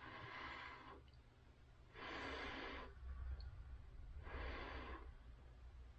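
A person breathing out audibly three times, each breath about a second long and roughly two seconds apart.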